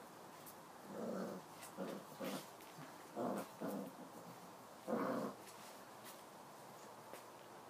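Five-week-old Tibetan mastiff puppies growling and yapping in about six short bursts, the loudest about five seconds in.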